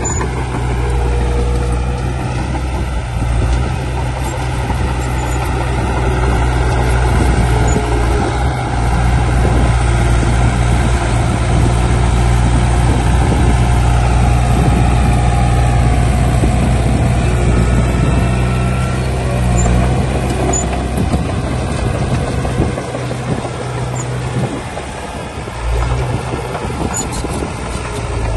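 Heavy diesel construction machinery running, a bulldozer and dump truck working, with a steady deep engine drone whose higher notes slowly shift as the revs change. The sound eases briefly about three-quarters of the way through.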